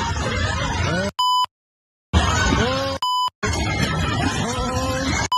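A crowd of people shouting and yelling during a fistfight in a restaurant dining room. Three times the audio is cut by a censor bleep, a steady 1 kHz beep followed by a moment of total silence: once about a second in, again about three seconds in, and at the very end.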